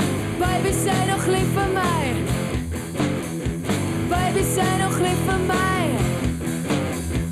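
Loud rock song: a sung vocal over electric guitar, bass and a driving drum kit.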